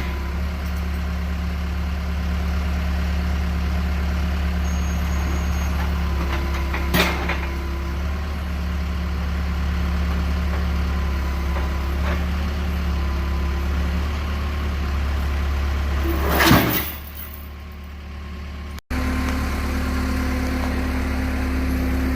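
Large vehicle engine idling steadily, with a few sharp knocks and a louder clatter about two-thirds of the way through. After the clatter the engine sound drops away briefly, then returns.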